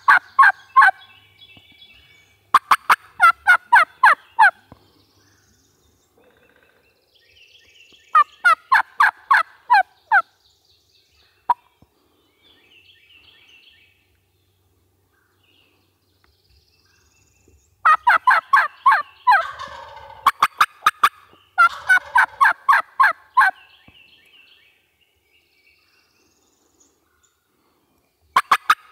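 Turkeys yelping: loud runs of about eight sharp, evenly spaced notes, about four a second, repeated around six times, with softer, higher chatter between the runs.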